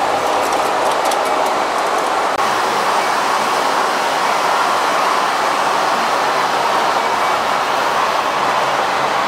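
Gauge 1 model train rolling along the track: a steady rolling rush of metal wheels on rails, with light clicking over the rail joints in the first two seconds.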